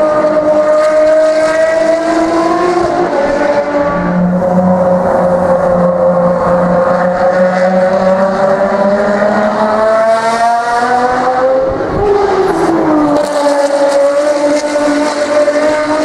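Ferrari V12 track cars running on the circuit, the engine note rising and falling as they pass, with a sharp drop in pitch about twelve seconds in.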